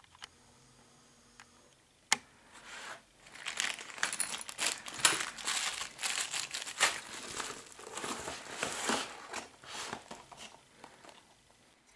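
Thin clear plastic bag crinkling in irregular rustles as it is handled, opening with a sharp click about two seconds in and dying away near the end.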